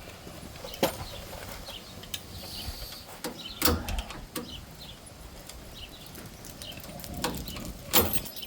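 Scattered metal clinks and knocks of hand tools as a flathead screwdriver is worked against a stuck front-suspension part, the loudest knocks about a third of the way in and near the end. Faint bird chirps in the background.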